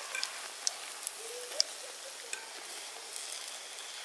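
Donuts frying in hot oil in a cast-iron pan, a steady sizzle, with a few sharp clicks of a metal spoon against the pan as they are lifted out, most of them in the first half.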